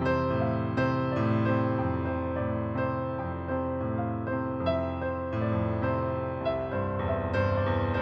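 Slow, gentle piano music, its notes left to ring into one another.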